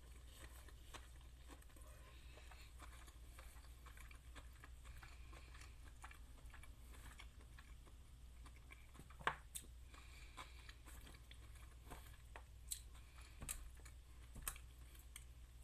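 Faint chewing of a mouthful of rice vermicelli with pork, bean sprouts, lettuce, cucumber and peanuts, with scattered soft clicks and a few sharper ticks in the second half, over a low steady hum.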